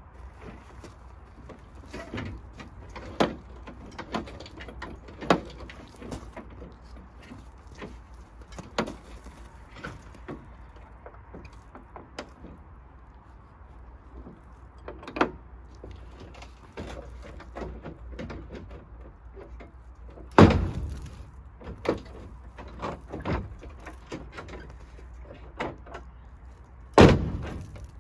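Scattered metal clicks and knocks from work on a 1957 Plymouth station wagon's tailgate, with two heavier clunks about twenty and twenty-seven seconds in.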